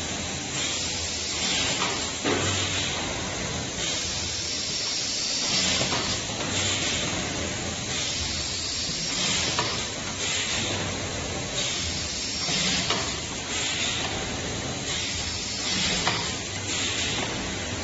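Automatic cellophane overwrapping machine running. Its steady hiss swells again and again in a repeating cycle as boxes are wrapped, over a faint low hum.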